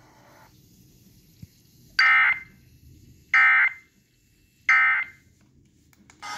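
Three loud, buzzy electronic alert beeps about 1.3 seconds apart, each under half a second long, from a mobile phone's emergency alert tone.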